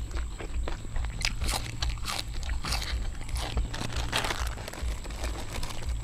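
Close-up crunching and chewing of raw long beans: irregular crisp bites and chews.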